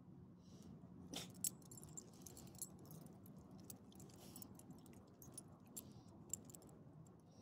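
Faint metallic clinking and jingling of a small dog's leash clip and collar tags as the dog moves its head, in scattered light clicks.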